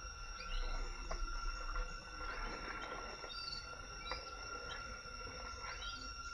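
Tropical forest ambience: a steady insect drone made of several constant high tones, with short bird chirps scattered through it. A brief soft rustle comes about two to three seconds in.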